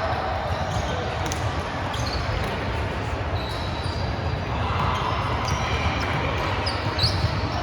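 Indoor volleyball play on a gym court: short high squeaks and a few sharp knocks over a steady low hum, the squeaks coming a few times in the second half.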